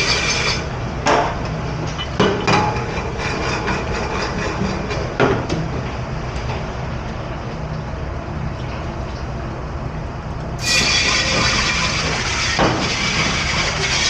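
Dishes clattering in a commercial dish room over a steady rushing din of water and machinery. A louder hiss comes in near the end.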